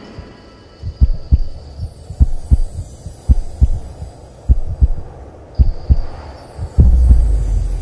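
Heartbeat sound effect: low double thumps, about one pair a second, over a low steady hum.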